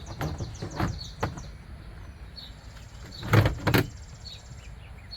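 Plastic door trim panel knocking and clicking against a vehicle door as it is fitted: a few light knocks early on, then two louder knocks close together about three and a half seconds in.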